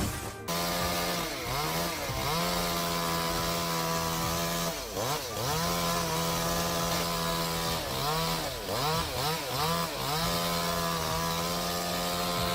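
Chainsaw engine running at high revs while cutting, starting abruptly about half a second in. Its pitch dips and recovers several times as the chain loads in the wood.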